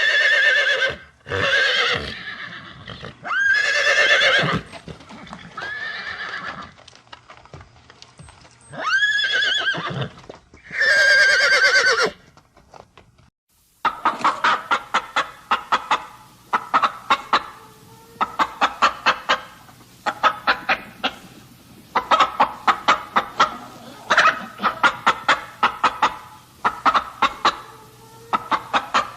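Farm animal calls: a run of separate drawn-out cries of about a second each, then, after a short pause about halfway through, a long stretch of fast clucking calls in quick runs.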